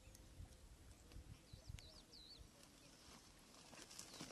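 Near silence, with a bird singing one short phrase of wavy, rising-and-falling whistled notes about one and a half seconds in. Faint rustling and handling sounds come in near the end.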